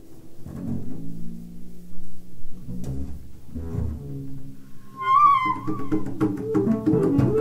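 Free-jazz improvisation: an upright bass plays low notes, and about five seconds in a woodwind joins with a high, wavering line.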